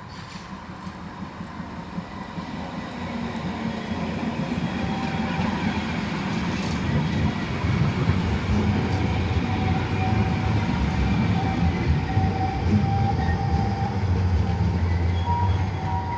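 Low-floor articulated tram running on a grassed track: a low rumble that grows louder as it approaches and stays loud as it passes close by, about eight seconds in. In the second half a faint steady whine sits over the rumble.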